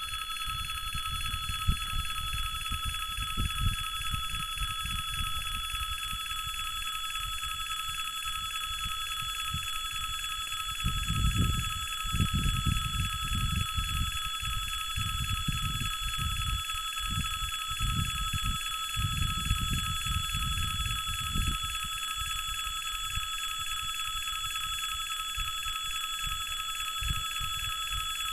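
Russian railway level-crossing alarm ringing steadily and without a break. A low, irregular rumble runs underneath and swells twice, around the middle and again about two-thirds of the way in.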